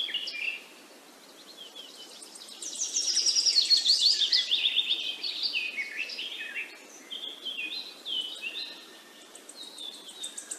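Several birds chirping and singing, many short calls overlapping, with a loud run of quick falling trilled notes about three seconds in, over a soft steady hiss.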